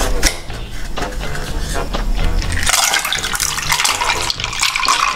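Plastic lid worked off a paper drink cup with a few light clicks, then the drink poured from the cup into a glass mug of ice cubes, splashing steadily from about two and a half seconds in.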